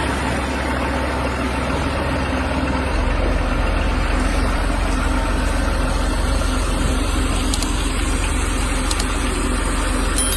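An engine running steadily with a low, even rumble, growing slightly louder about three seconds in.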